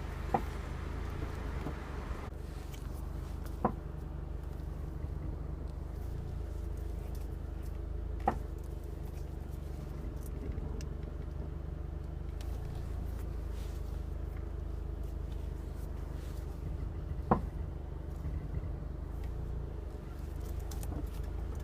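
Four sharp single clunks from the right front suspension of a Subaru Impreza WRX STI as the steering is turned right and back, over the car's steady low hum. The clunk comes from a failed bearing in the right front strut's upper mount.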